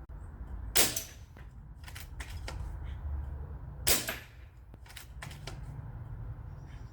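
Two air rifle shots, about three seconds apart, with fainter clicks between them, fired to knock the paddles of a reactive resetting target back up.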